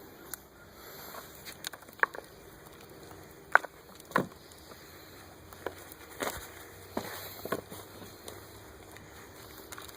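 Irregular light knocks, taps and rustles of hands sifting through loose potting soil and handling potatoes, with two sharper knocks a little past the middle.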